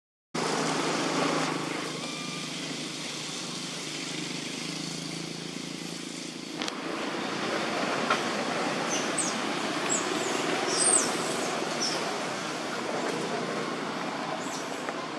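Steady outdoor background noise with no clear single source, and a few short high chirps around the middle.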